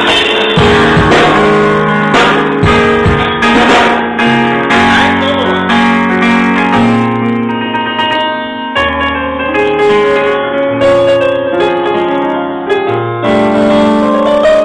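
Live band music: electronic keyboards playing sustained chords, with drum kit and cymbal hits standing out during the first few seconds, then the keyboard chords carrying on with only light hits.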